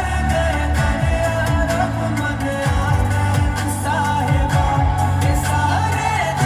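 Background music: an Indian pop song with a singing voice over a strong, steady bass beat.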